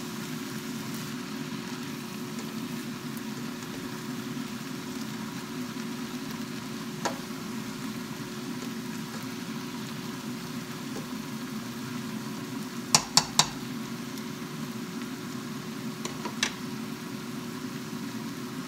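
Ground chicken, shredded cabbage and carrots sizzling in a frying pan while being stirred and scraped with a slotted spatula. A sharp knock comes about seven seconds in, three quick knocks, the loudest sounds, about thirteen seconds in, and a couple of smaller ones a few seconds later.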